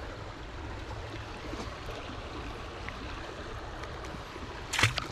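Steady rush of flowing water, with a brief sharp sound near the end.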